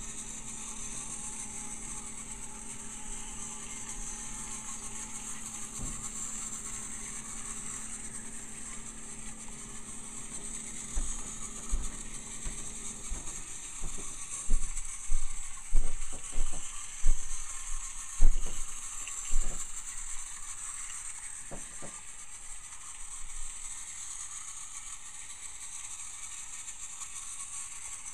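A battery-powered TrackMaster Diesel 10 toy train running on plastic track: a steady small-motor whir with rattling, a low hum that stops about halfway, and a run of short knocks in the middle.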